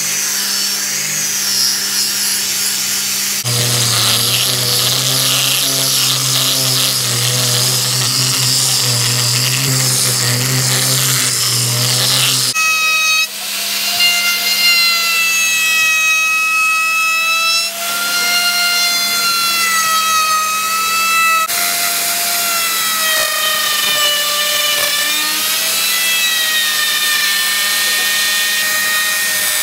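Angle grinder with a sanding disc sanding a wooden cutting board: a steady motor hum under a rough rasping. Partway through this gives way to a router cutting the board's face and edge: a high motor whine whose pitch wavers as the bit bites into the wood.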